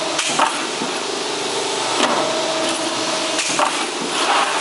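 CNC plate shearing machine running through its cutting cycle on steel plate: a steady mechanical noise with sharp metal clanks about every second and a half as the hold-downs and blade come down, and a steady whine for about a second in the middle.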